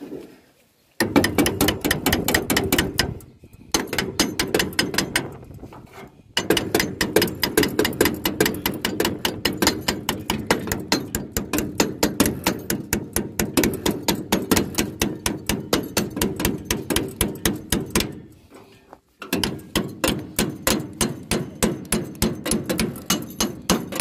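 Rapid, even metallic clicking, several clicks a second, in long runs broken by a few short pauses: hand tool work on a John Deere 346 baler's knotter mechanism.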